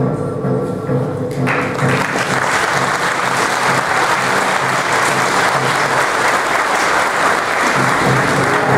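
Audience applause that breaks out about a second and a half in and keeps going, over background music.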